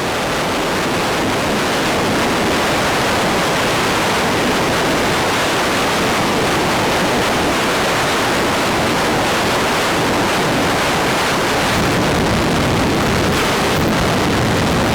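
Dark ambient noise music: a dense, steady wash of noise like surf or wind, rising slightly over the first second.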